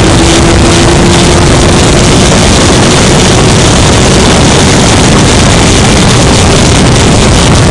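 Lola T200 Formula Ford's 1.6-litre Ford Kent four-cylinder engine running hard at speed, heard from an onboard camera, with heavy wind buffeting the microphone; the engine note climbs slowly as the car accelerates.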